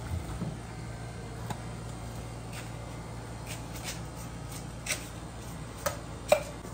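Knife cutting and scraping kernels off fresh ears of corn into an enamel tray: scattered soft scrapes and clicks, a few sharper ones in the second half, over a steady low hum.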